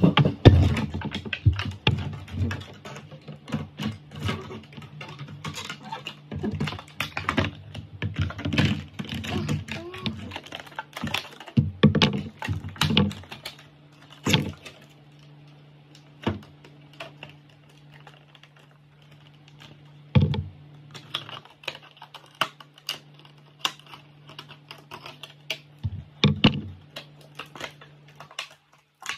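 Rapid, irregular clicks and taps of small hard objects being handled close to the microphone, dense at first and thinning out about halfway through, over a steady low hum.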